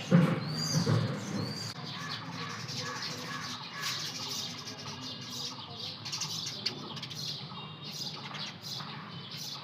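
Small birds chirping and twittering in many short, quick notes, over a steady low background hum. A louder low sound stands out in the first second.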